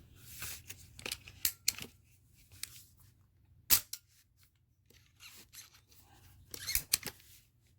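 Trigger mechanism of an AEA SF series PCP air rifle being worked by hand in a function check of its newly replaced sear spring. Sharp metallic clicks as it is cycled, the loudest about a third of the way in and another pair near the end, with light handling rustle between.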